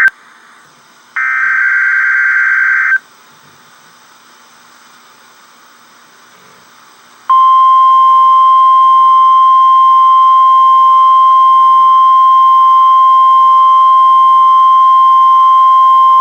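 Emergency Alert System tornado watch alert: a harsh, warbling burst of digital header data for about two seconds starting about a second in, a few seconds of hiss, then the steady, loud, single-pitch NOAA Weather Radio alert tone starting about seven seconds in.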